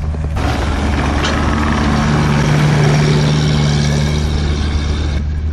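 Schaeff HR14 mini excavator's diesel engine running close by, a steady low hum that swells louder and noisier from about half a second in, then drops back near the end.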